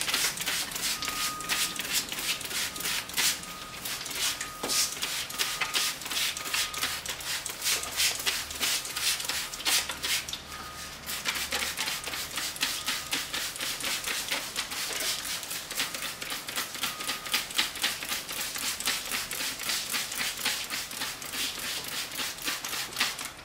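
Hand-trigger spray bottle squeezed over and over, giving a rapid run of short hissing squirts of water, several a second, with a short pause about ten and a half seconds in. The water rinses polishing compound off a freshly buffed plastic headlight lens.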